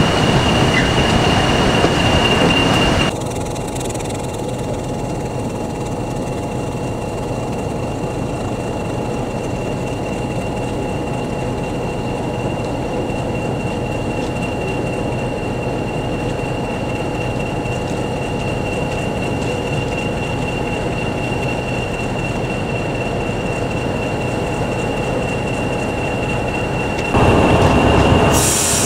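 Class 40 diesel locomotive running, a steady high whistle over the engine's hum. The first few seconds are louder with train running noise, and the sound steps abruptly quieter, then louder again near the end.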